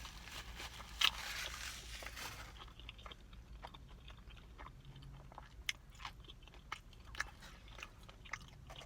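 Close-up chewing of a crispy fried chicken sandwich: a sharp crunch about a second in, a short stretch of crunching, then scattered small wet mouth clicks as the bite is chewed.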